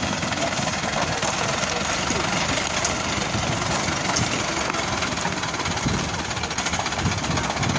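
Engine of a Kia light flatbed truck running as the truck moves slowly along a gravel track, a steady sound at an even level.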